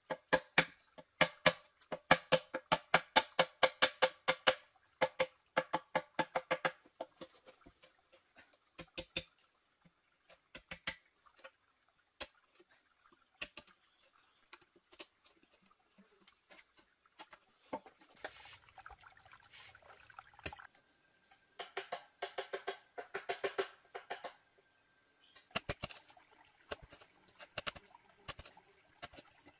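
Knife blade chopping into a green bamboo tube to cut holes, a fast run of sharp knocks, each with a pitched ring. Then come scattered single taps, and a second quick run of ringing blows later on.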